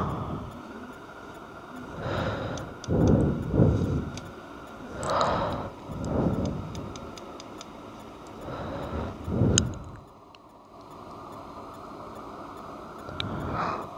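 Handling noise from a plastic Fujifilm Instax mini 9 instant camera turned over in the hand close to the microphone: irregular rubbing bumps every second or two, with faint small plastic ticks in between.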